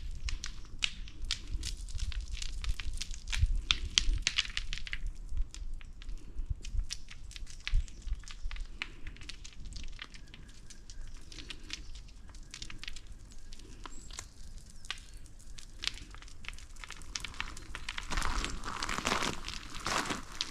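Footsteps crunching along a trail, each step a soft thud under a dense run of small crackles and clicks.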